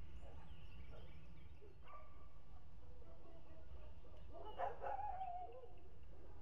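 Steady low rumble of outdoor background noise, with a few faint calls and one louder animal call about four and a half seconds in: a sharp onset, then a wavering tone that falls slightly over about a second.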